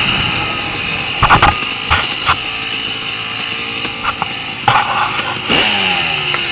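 Dirt bike engine running as the bike rides along a bumpy forest trail, heard from a helmet camera, with several sharp thumps from the bumps. Near the end the engine's pitch falls as the bike slows.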